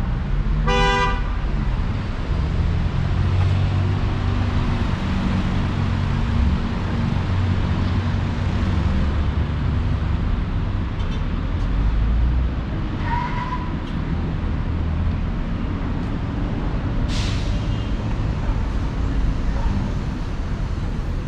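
Street traffic: a vehicle horn toots once, briefly, about a second in, over the steady low running of vehicle engines.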